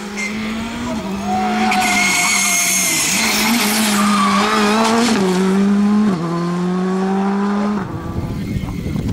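Skoda Fabia R5 rally car's turbocharged four-cylinder engine running hard through a tarmac corner and past at close range, with tyres squealing about two seconds in. The engine note drops in pitch a few times as the car pulls away, then cuts off about eight seconds in.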